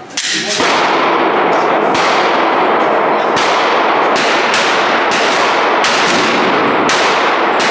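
Handgun fired in quick succession at a shooting range: about a dozen loud shots, roughly one every half second or so, each trailing a long echo.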